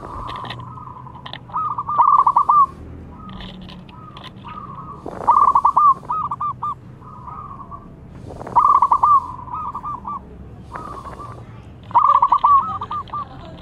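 Young zebra dove (perkutut) cooing its song four times, about every three seconds. Each phrase is a quick stuttering run of notes followed by a few trailing coos. Fainter, higher chirps come between the phrases.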